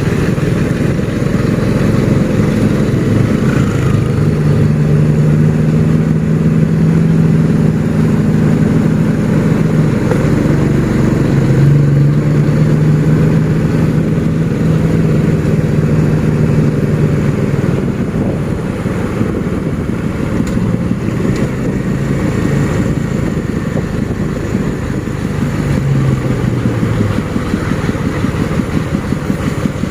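Motor vehicle engines running on a steep uphill road. The engine note is steady, dips in pitch and shifts around ten to twelve seconds in, and fades back into a general engine rumble after about seventeen seconds.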